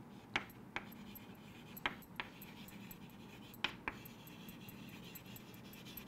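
Chalk on a chalkboard while writing: a few faint, sharp taps in pairs as the chalk strikes the board, over a low hiss.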